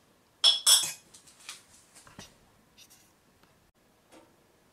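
Two sharp clicks about half a second in, followed by softer scattered ticks and scrapes and one last light knock near the end.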